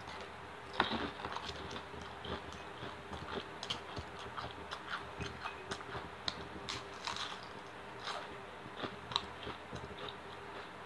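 A person chewing and biting food close to the microphone, with irregular small mouth clicks several times a second.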